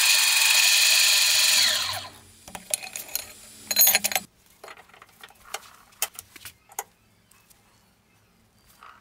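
A power tool motor runs loudly, then is switched off and spins down with a falling whine about two seconds in. Scattered clicks and light knocks of metal parts being handled follow.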